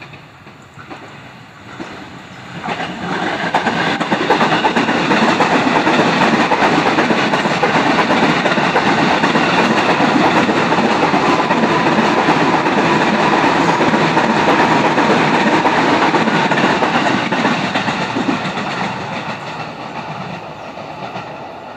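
A KRL electric commuter train passing close by, its wheels running on the rails. The noise swells sharply about three seconds in, stays loud through the middle, and fades as the train pulls away near the end.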